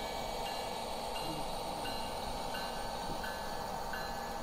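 Sound-equipped HO scale model diesel locomotive with its bell ringing at about one strike a second, over a steady running rumble from the locomotive and the cars rolling on the track.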